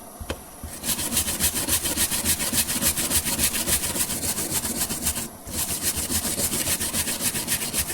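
Hand wire brush scrubbing a steel door hinge in quick back-and-forth strokes, clearing off paint that has been loosened and mostly scraped away after blowtorch heating. The brushing starts about a second in and stops briefly a little past five seconds before carrying on.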